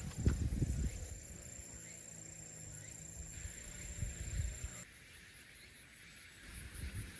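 Insects chirping in a fine, even high-pitched pulse, with low rumbling bumps near the start and again about four seconds in. The sound changes abruptly about five seconds in.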